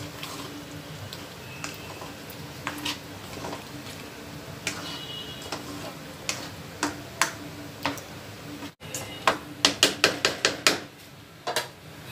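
A spoon tapping and scraping against a kadhai while stirring chicken pieces in water. Scattered single taps give way to a quick run of clicks about nine seconds in.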